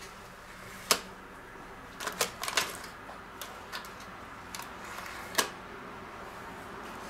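Scattered light clicks and taps of a metal tablespoon against a stainless steel bowl and a semolina packet as durum wheat semolina is spooned onto flour: one about a second in, a small cluster around two seconds, and one more past five seconds.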